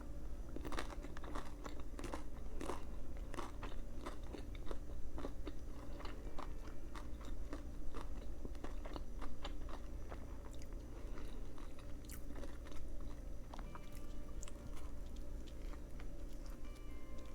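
Crunchy chewing of a Subway veggie patty sandwich, a quick run of crackly bites and crunches that thins out in the second half.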